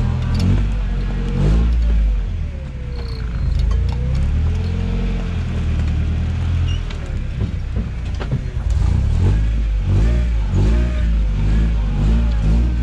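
Toyota truck engine running and revving up and down, with a few sharp knocks.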